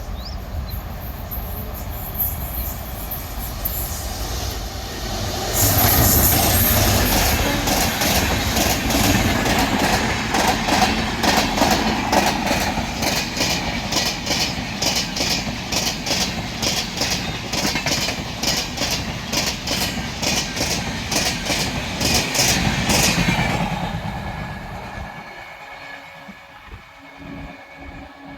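Raigarh Jan Shatabdi express with LHB coaches passing at speed. A rumble builds, turns loud about five seconds in, and is followed by a long, rapid, regular clickety-clack of the wheels over rail joints. The sound dies away a few seconds before the end.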